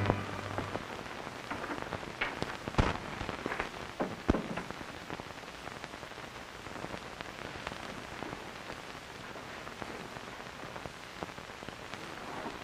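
Steady hiss of an old film soundtrack, with a few sharp knocks about two to four and a half seconds in.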